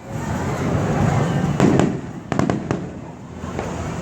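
Aerial fireworks bursting: a low rolling rumble of booms, with sharp bangs about a second and a half in and a quick cluster of cracks just after two seconds.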